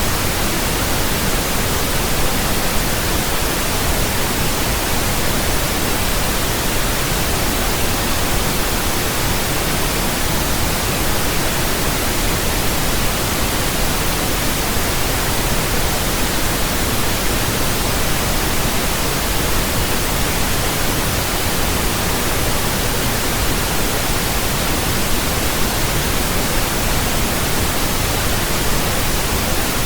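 Steady pink noise: an even, unchanging hiss with a deeper rumble beneath it.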